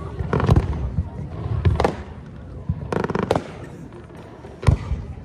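Fireworks display: aerial shells bursting in a series of sharp bangs about a second apart, with a quick cluster of reports in the middle.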